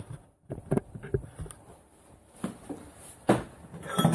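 Scattered light knocks and clicks of objects being handled on a wooden workbench, getting busier and louder near the end as aluminium plates are moved.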